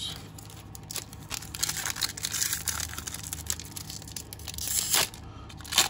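Foil trading-card pack wrappers crinkling and rustling as they are handled, with a couple of sharper crackles near the end.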